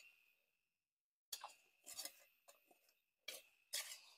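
Near silence broken by a handful of faint, short rustles and clicks of movement on the leaf-littered forest floor, with a thin, steady high tone behind them.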